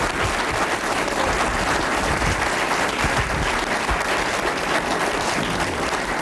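A seated audience applauding steadily, a dense even clapping that welcomes a guest introduced on stage.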